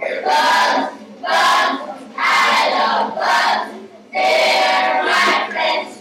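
Loud, high-pitched voices sounding in short bursts, about seven in six seconds with brief gaps between them.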